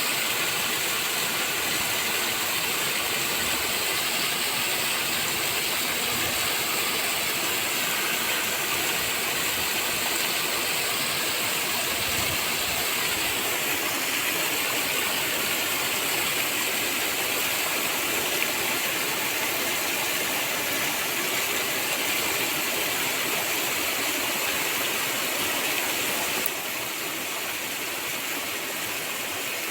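Sea surf making a steady, even rushing hiss, with no single wave break standing out. It drops slightly in level about 26 seconds in.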